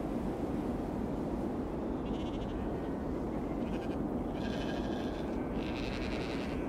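Sheep in a flock bleating: several wavering calls, some overlapping, starting about two seconds in, over a steady low rushing noise.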